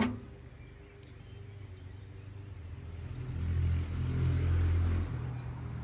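A low engine rumble that swells about halfway through and eases near the end, with a bird's high, falling chirps twice.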